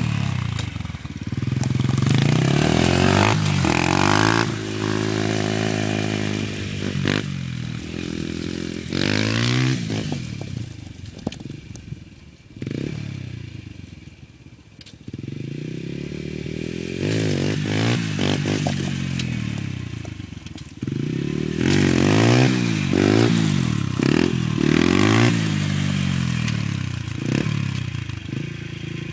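Honda TRX90EX quad's small single-cylinder four-stroke engine revving up and down over and over as the throttle is blipped to lift the front wheels for wheelies. It fades to a quieter, steadier run about halfway through as the quad moves far off, then comes back loud with repeated rises and falls in pitch.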